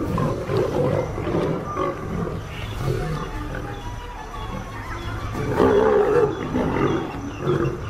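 Lions growling and roaring in short, rough bouts, the loudest about two-thirds of the way through, over background music.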